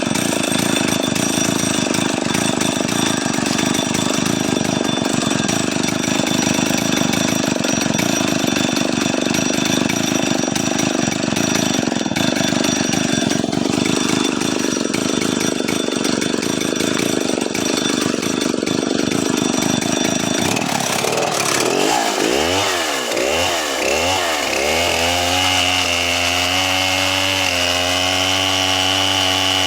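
Two-stroke chainsaw cutting through wood under load for about twenty seconds. Its engine note then swings up and down a few times and settles into steady high running.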